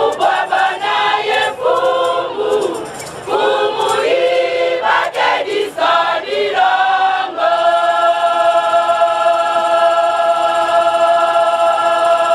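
Women's choir singing a hymn in shifting sung phrases, then holding one long note through the second half.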